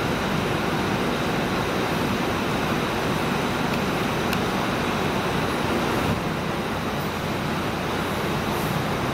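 Scania K410EB6 coach's straight-six diesel engine idling steadily, a low hum under a wash of noise in the covered coach station.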